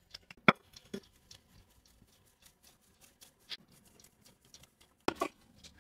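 Sparse light clicks and taps of kitchen utensils against bowls and dishes as dry ingredients are added to a mixing bowl of flour. There is a sharper tap about half a second in and a short cluster of taps near the end.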